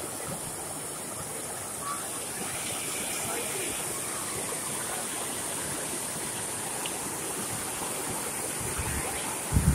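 Steady rush of floodwater pouring over the tank's spillway, with a couple of low thumps near the end.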